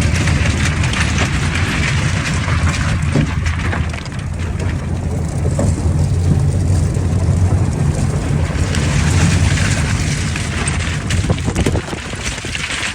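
Off-road vehicle driving, its engine holding a steady low drone under a broad rumble of travel. The sound eases a little about four seconds in and again near the end.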